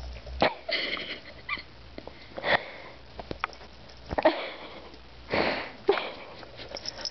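A run of short, breathy puffs and sniffs, five or so spread over several seconds, with a few sharp clicks between them.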